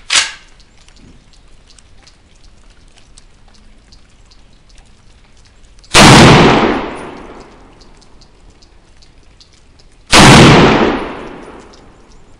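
Two rifle shots from a Molot VEPR semi-automatic rifle in 7.62x54R, about four seconds apart, each a loud crack with a long trailing echo. A brief knock sounds right at the start.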